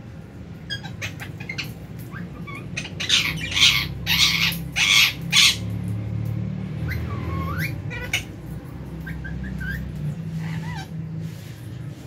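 A flock of lovebirds calling: a run of loud, harsh squawks about three to five seconds in, then scattered shorter chirps that slide up and down in pitch.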